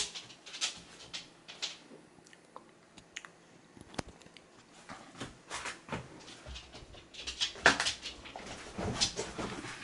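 Scattered soft clicks, taps and rustles in a quiet small room, with no music; a few louder rustles come near the end.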